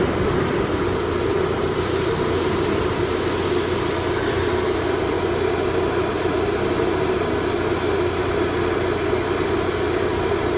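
Steady drone of running machinery in a CNC workshop: a constant low hum under an even mechanical noise, with no change or strokes.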